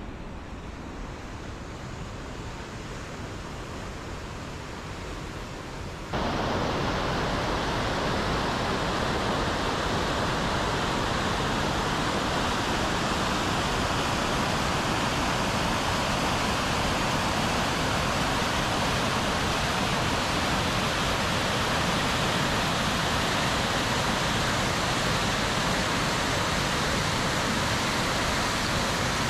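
Mountain river rushing over rapids and a small waterfall: a steady noise of water that jumps suddenly louder about six seconds in, where the sound comes close to the falling water.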